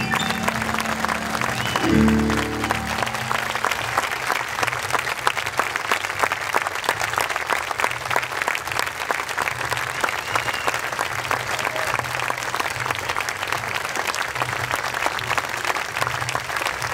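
A grand piano's last notes, ending on a low final chord about two seconds in, then a large audience applauding steadily through the rest.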